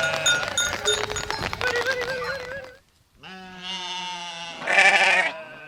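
Farm animals bleating: wavering calls over about the first two and a half seconds, a brief break, then one long bleat that swells loudest about five seconds in.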